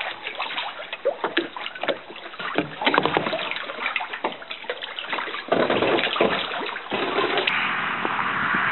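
Lake water sloshing and splashing against the rock walls of a small cave, in short irregular splashes. About seven and a half seconds in this gives way to a steady rushing noise.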